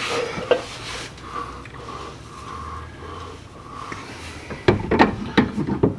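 Metal parts being handled as a cylindrical clutch-and-pump housing is worked onto a car's rear differential, with several sharp metal clicks and knocks near the end.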